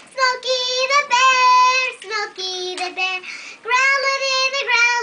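A young girl singing unaccompanied, in long held notes.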